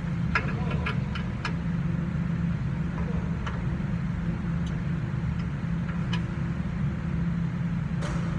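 Nissan pickup engine idling steadily after a new fuel pump has been fitted, heard from beneath the truck, with a few light clicks in the first second and a half.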